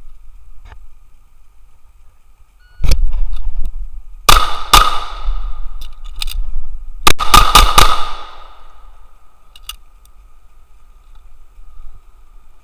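A shot timer's start beep, then a 9mm or .40 S&W pistol fires two quick shots about half a second apart, a couple of clicks during a reload, and four rapid shots a bit over two seconds later, each shot trailing an echo.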